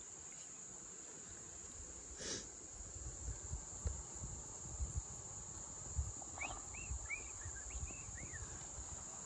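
Steady, high-pitched drone of insects, with low, irregular thumps as someone wades through shallow water over rocks. A few short chirps come between about six and eight seconds in.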